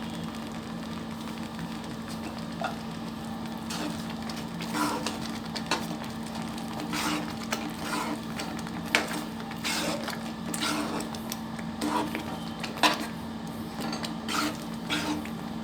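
A spatula stirring thick, finished wheat halwa with ghee in a metal kadai, making irregular scrapes and knocks against the pan over a steady low hum.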